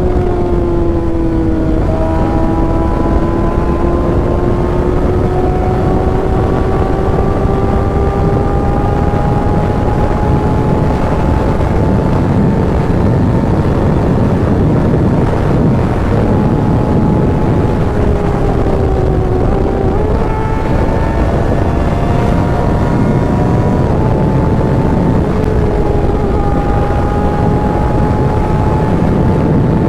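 Kawasaki ZX-6R inline-four engine running on the road under steady throttle, over a continuous rush of wind. Its pitch drops about two seconds in, then climbs slowly. It dips and jumps back up about two-thirds of the way through.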